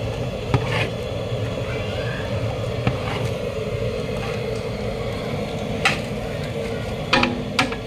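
A metal ladle stirring chopped vegetables in a large aluminium cooking pot, giving a few scattered clanks against the pot, over a steady low rumble.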